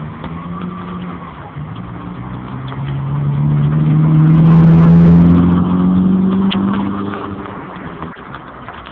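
A motor vehicle's engine passing close by: it grows louder, is loudest about five seconds in, then fades away, over a steady rushing noise.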